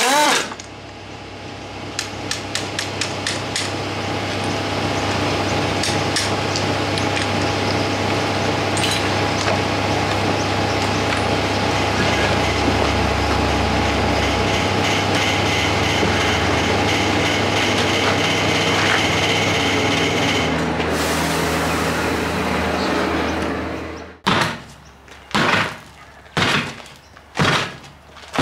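Air impact wrench hammering off a tractor's wheel nuts in short rattling bursts, followed by a long steady machine noise that stops abruptly. Then five heavy thuds about a second apart.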